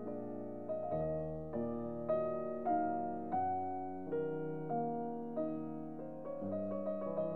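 Slow piano music: a new chord struck roughly every half second to second, each left to ring and fade.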